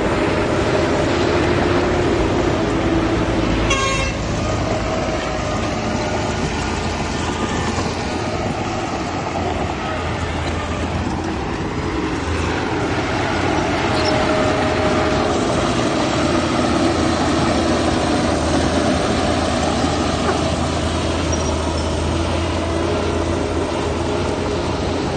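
Diesel engines of a bulldozer and dump trucks running steadily, a loud, even drone with a deep hum. A brief high-pitched sound cuts through about four seconds in.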